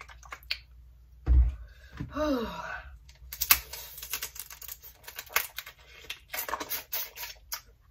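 Close-up mukbang eating sounds: a dense run of sharp crackling clicks from crawfish shells being cracked and peeled, with mouth smacking, after a brief hummed voice sound about a second in.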